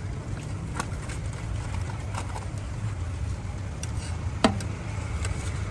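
Busy street ambience: a steady low rumble of traffic with scattered light clicks and clinks, and one sharp clack about four and a half seconds in.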